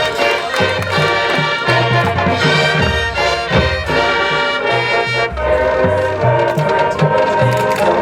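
Marching band playing: brass section with sustained chords, and drums keeping a steady beat.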